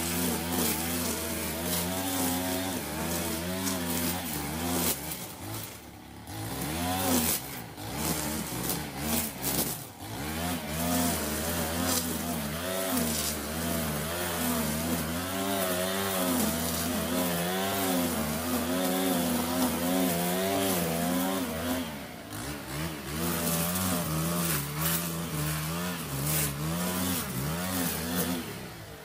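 Stihl FS 90 R string trimmer running under throttle while cutting grass and weeds, its engine note rising and falling as the throttle is worked and easing off briefly a few times.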